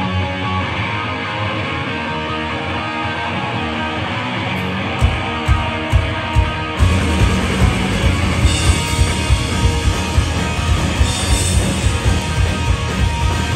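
Live punk rock band opening a song: electric guitar playing alone, then four drum hits about half a second apart from about five seconds in, and the full band with distorted guitars, bass and fast drums coming in at about seven seconds.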